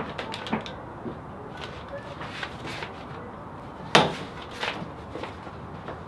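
A glass-paned commercial door's metal lever handle and latch clacking sharply once as the door is pulled open about four seconds in, followed by a few lighter knocks as the door swings.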